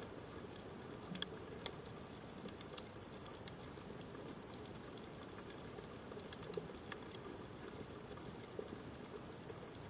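Underwater reef ambience: a faint, steady hiss broken by scattered sharp clicks and crackles, typical of snapping shrimp on a coral reef, with the loudest click about a second in.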